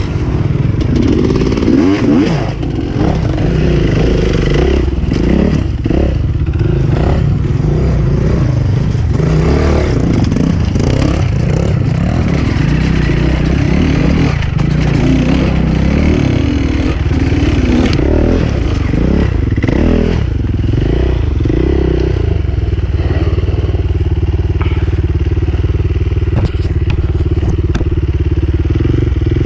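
Enduro dirt bike engine being ridden over rough ground, revving up and down again and again, with knocks and rattles from the bike. From about twenty seconds in the engine note holds steadier.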